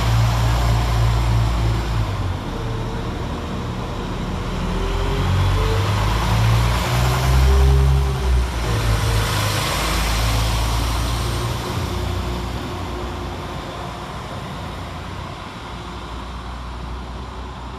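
Northern Class 195 diesel multiple unit pulling away under power. The engine note steps between pitches, loudest about eight seconds in, then fading steadily as the train draws off.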